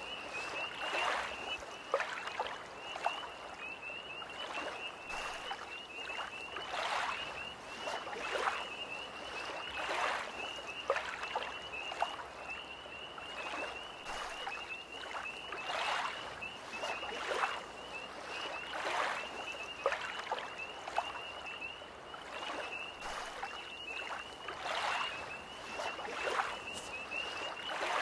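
Small lake waves lapping at the shore in soft swells every second or two, over a steady, rapidly pulsing chorus of tree frogs.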